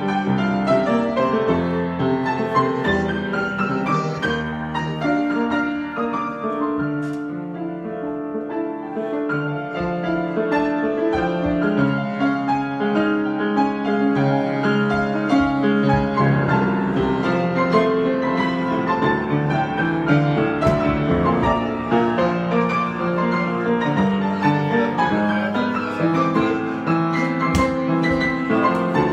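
Solo piano improvisation: layered, sustained chords with a melody moving above them, a little softer about a quarter of the way through.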